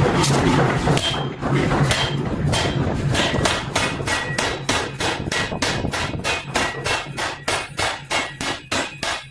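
Hammer blows on metal in a forging process, struck in a rapid, even rhythm of about three to four a second, each with a faint metallic ring. A steady low machine hum runs underneath for the first second or so.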